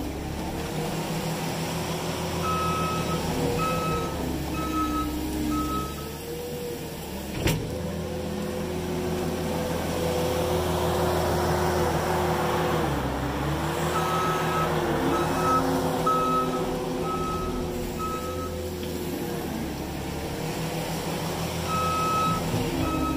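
New Holland skid steer's diesel engine running while working, its pitch dipping briefly under load several times. The reversing alarm beeps steadily in three runs as the machine backs up, and there is one sharp knock about seven seconds in.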